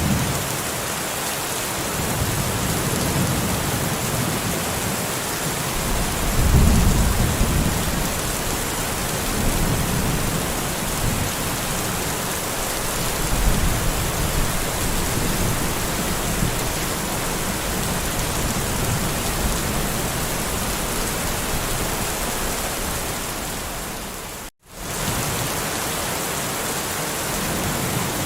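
Steady rain with rolling thunder rumbling low underneath, loudest about six or seven seconds in and dying away over the following quarter minute. Near the end the sound cuts out for a split second.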